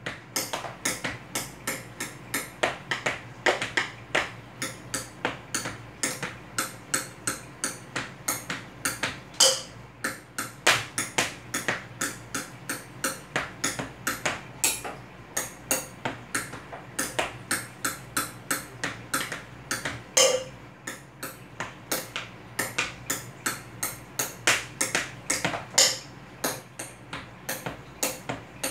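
Hands tap-drumming on a table: a steady run of sharp taps about three a second in a basic 1-2 pattern, some hits much louder than others.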